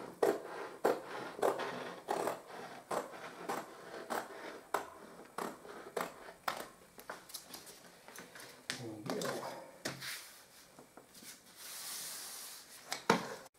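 Scissors snipping through paper-hanging lining paper, a steady run of crisp snips about two a second. Near the end, a hand smoothing the trimmed paper against the wall with a soft brushing hiss.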